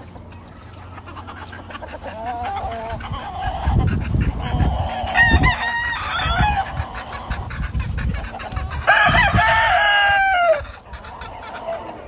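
Gamefowl roosters crowing from their pens. Several crows overlap in the first half, and one loud crow comes about nine seconds in, dropping in pitch at its end.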